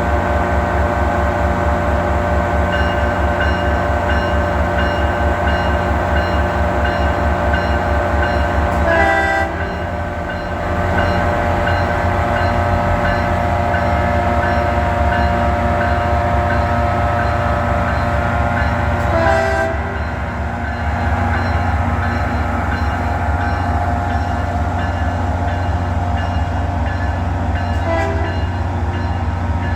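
Caltrain train horn sounding in long, steady blasts, with short breaks about nine and nineteen seconds in, over the low rhythmic rumble of the passing train.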